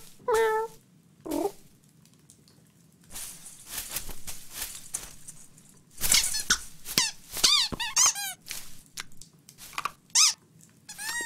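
Cartoon sound effects for an animated cat in a Christmas tree: a short cat chirrup at the start, soft rustling of branches in the middle, then a quick run of high squeaks and chirps that each fall in pitch.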